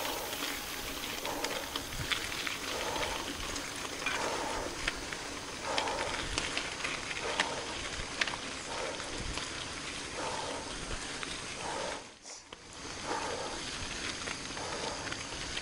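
A mountain biker breathing hard in a steady rhythm while riding, over a steady rustle of tyre and trail noise. The sound drops away briefly about twelve seconds in.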